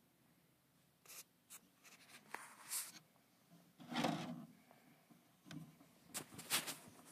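Light scratching and rubbing in a run of short bursts, the loudest about four seconds in.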